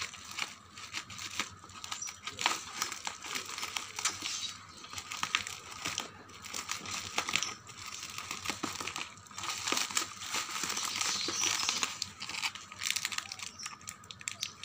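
Plastic parcel packaging crinkling and rustling as it is cut open with scissors and pulled apart, with irregular sharp snips and crackles.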